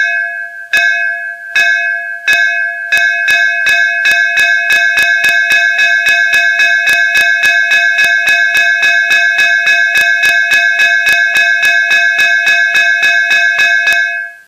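Traditional metal school bell being struck, ringing a clear metallic tone. Four spaced strokes come first, then a fast, even run of about four strokes a second. It stops abruptly near the end.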